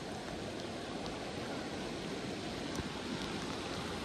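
Steady rushing noise of flowing flood water.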